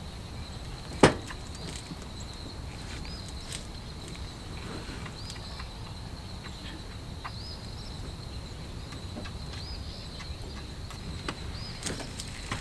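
Outdoor morning ambience: a steady high insect drone with small, repeated bird chirps over it. One sharp knock about a second in, and a few lighter clicks near the end.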